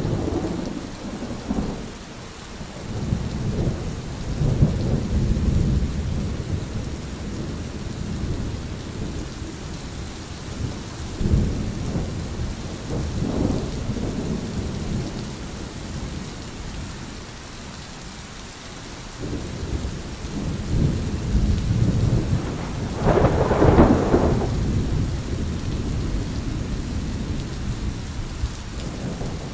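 Thunder rolling several times over a steady hiss of rain, with long low rumbles near the start, in the middle and again later; the loudest, sharper peal comes about three-quarters of the way through.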